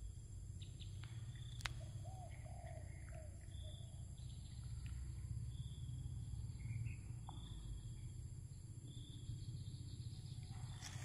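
Outdoor ambience of birds chirping: a short high call repeating every second or two, with a few lower chirps about two to three seconds in, over a steady low rumble and one sharp click. Just before the end a rising hiss begins as the DJI Mavic 3 Pro drone's propellers start spinning up for takeoff.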